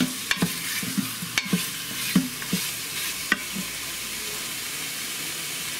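Cubes of beef brisket sizzling as they brown in oil in an Instant Pot's stainless steel inner pot on the sauté setting. A wooden spoon stirs them for the first three seconds or so, knocking and scraping against the pot; after that only the steady sizzle remains.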